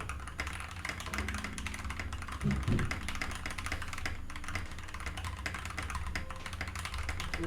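Rapid, continuous typing on a keyboard fitted with new keycaps, the keystrokes clicking in quick succession. A short low hum cuts in briefly about two and a half seconds in.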